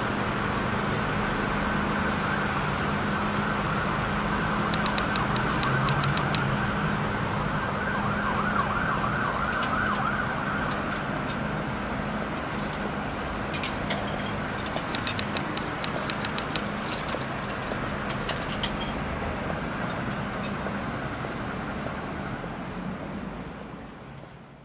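City street ambience with a distant emergency-vehicle siren wailing over traffic noise. There are two short runs of quick clicks, and the sound fades out near the end.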